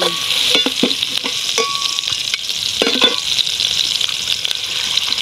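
Chopped red chilies and aromatics sizzling steadily in hot oil in a stainless steel honeycomb wok, stirred with a metal spatula that scrapes and knocks against the pan a few times.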